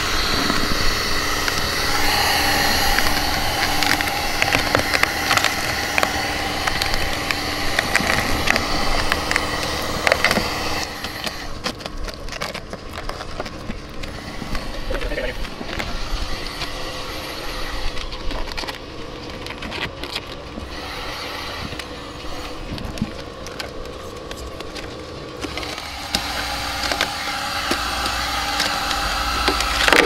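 Electric heat gun running with a steady blower hum and several constant tones, used to warm protective film as it is peeled off car paint. It drops quieter for a stretch in the middle, with a few short clicks along the way.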